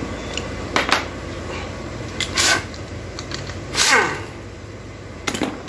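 Metallic clinks and scrapes of bolts and hand tools being handled on a transmission, several separate short knocks about a second apart, the loudest near four seconds in with a brief falling ring, over a steady low hum.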